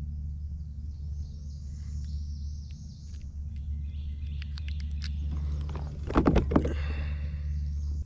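Hands unhooking a small sunfish right at the microphone of a head-mounted camera: a steady low rumble of handling noise with scattered small clicks, and a louder scuffle about six seconds in.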